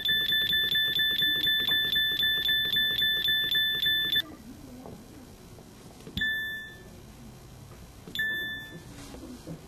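SKY IM-S320K phone's keypad tones: a rapid, even string of beeps, about four to five a second, as a key is held to scroll through a list, cutting off suddenly about four seconds in. Then two single key beeps about two seconds apart.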